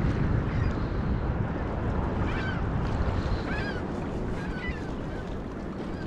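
Wind buffeting the camera microphone over choppy lake waves washing against a pier's breakwall. A few short, high chirps come through around the middle.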